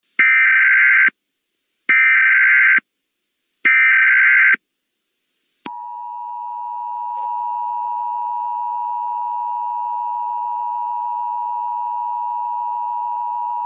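Emergency Alert System alert opening. First come three SAME header data bursts, each a harsh, high, buzzy squeal about a second long with short gaps between them. About six seconds in, the steady two-tone EAS attention signal starts, swells slightly at first, then holds at an even level.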